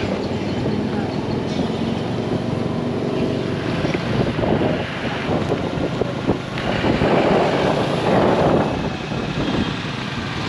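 Road traffic: vehicle engines running and passing, with louder swells about four seconds in and again around seven to nine seconds in, and voices in the background.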